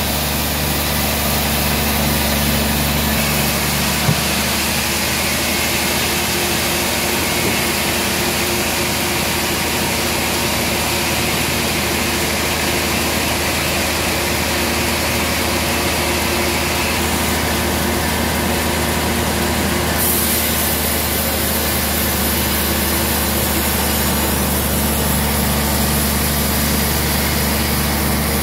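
Band sawmill machinery running steadily, a continuous low hum with engine-like harmonics; a single sharp click about four seconds in.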